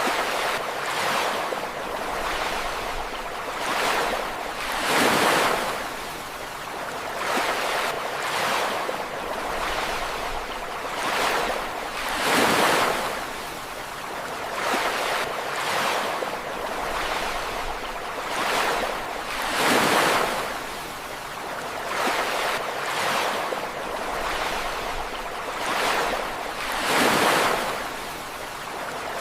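Ocean waves breaking on a shore, a continuous wash of surf that swells with each breaker, the largest surges coming about every seven to eight seconds.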